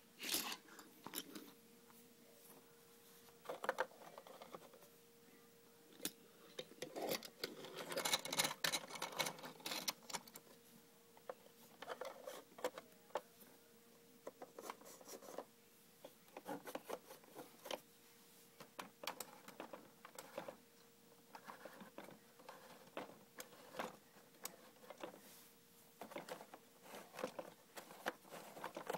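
Small plastic toy playset parts being handled: scattered clicks, taps and light rattles, busiest in a spell about a third of the way through.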